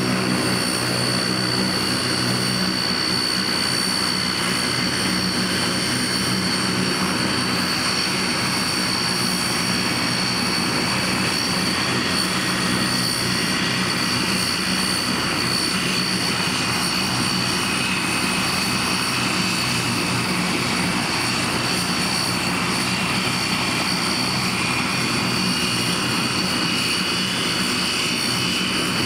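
Antonov An-32's two Ivchenko AI-20D turboprop engines running steadily on the ground with propellers turning: a constant high turbine whine over the propeller drone.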